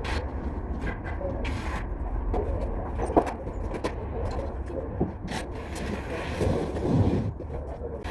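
Scattered knocks, clicks and scrapes of work on a renovation site, with a few brief hisses, over a steady low rumble.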